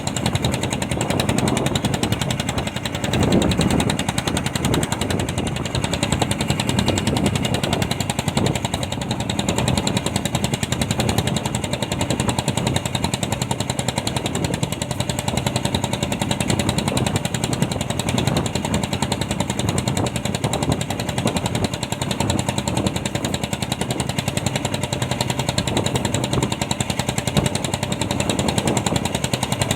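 Fishing boat engine running steadily with a fast, even pulse.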